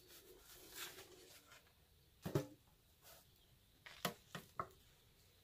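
Handling knocks as a cane proofing basket of sourdough is turned out onto a baking-paper-lined metal pizza peel on a wooden table. There is one dull knock a little over two seconds in, then three quick light taps around four seconds.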